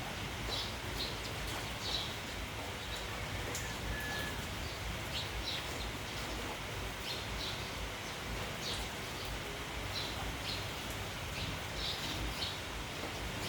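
A flock of sparrows chirping, short high chirps repeating every second or so, over a steady hiss of rain and wind in the trees.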